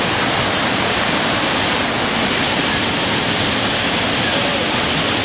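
Rushing river water tumbling over rocks, a steady loud rush.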